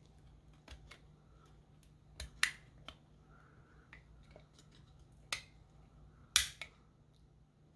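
Box cutter blade cutting and scraping at the edge of a clear plastic chassis plate, to shave out room for a nut. The cuts come as a handful of sharp, separate clicks and snaps, the loudest about two and a half, five and a half and six and a half seconds in.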